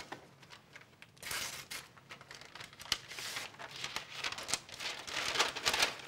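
Paper letter rustling and crinkling as it is unfolded and handled, in irregular bursts that start about a second in.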